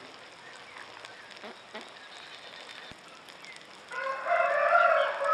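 A rooster crowing: one long call starting about four seconds in, after a few seconds of quiet.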